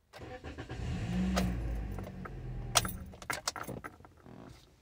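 2015 Toyota Corolla S's four-cylinder engine being cranked over by the starter for about three seconds without firing, fuel cut off by the scan tool for a relative compression test. It is followed by a run of clicks and rattles.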